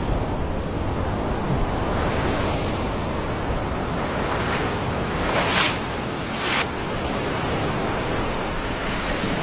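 Steady rushing surf with wind on the microphone; two brighter swishes a little past the middle.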